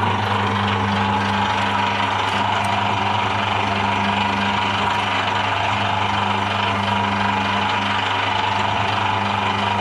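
Shredder machine's motor running empty with a steady hum.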